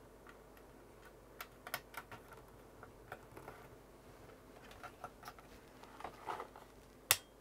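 Irregular small clicks and taps of a DRAM chip being handled and pressed into its socket on an Amiga 500 motherboard, with one sharper click near the end.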